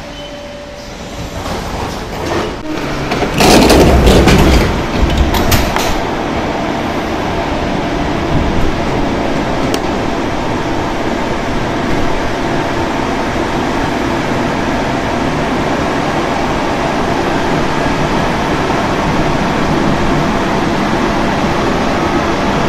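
Inside a rubber-tyred Marseille metro train: a loud burst of clatter and knocks about three to six seconds in, then the steady running noise of the train, slowly building.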